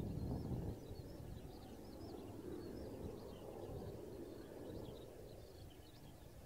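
Distant jet roar of a Mitsubishi F-2's single F110 engine in flight: a low rumble that drops in level under a second in, then fades slowly. Small birds chirp steadily above it.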